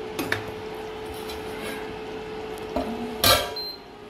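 A spoon clinks on a metal kadai near the start. About three seconds in, a stainless steel lid is set down on the kadai with a loud metallic clatter. A steady thin hum runs underneath.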